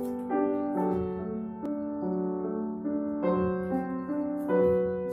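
Solo grand piano being played: a melody of sustained notes that change about every half second to a second, ringing on and overlapping one another.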